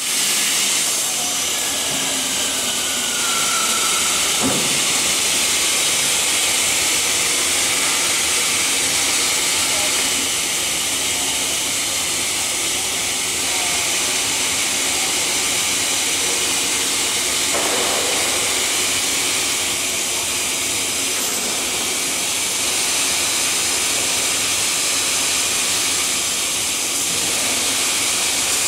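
Double-head cutting saw running: a steady, loud hiss that holds level throughout.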